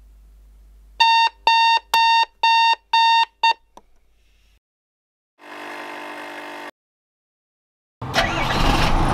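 Digital alarm clock beeping about twice a second, about six beeps, cut off mid-beep when a hand slaps it quiet. A short steady hum follows, then a car engine starts as the ignition key is turned near the end.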